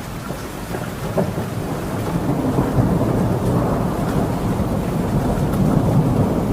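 Heavy rain pouring with a low rumble of thunder that swells over the first few seconds.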